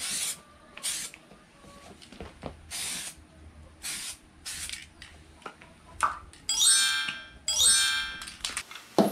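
Short hisses of an aerosol spray can putting black paint onto the parts, about five quick bursts in the first five seconds. Near the end, a glittering chime sound effect plays.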